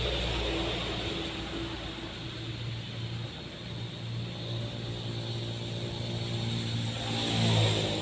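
Engines of vehicles passing on the road, a steady hum with one passing louder near the end.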